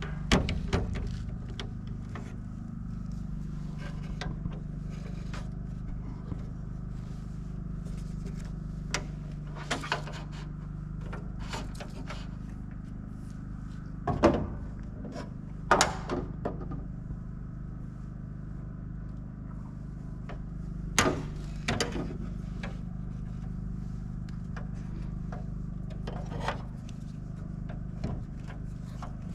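Scattered clicks, knocks and scrapes of hand work, the loudest about fourteen, sixteen and twenty-one seconds in, over a steady low hum.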